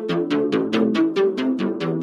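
Proclethya software synthesizer playing an arpeggiator preset: an even, fast run of short plucked notes, about six a second, stepping through the notes of a chord.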